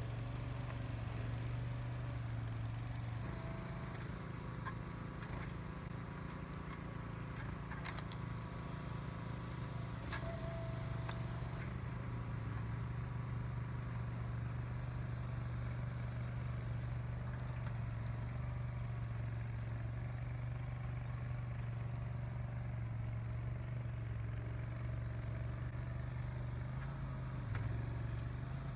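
Boxer 427 mini skid steer's engine running steadily, its note shifting slightly a few times, with a couple of brief clanks.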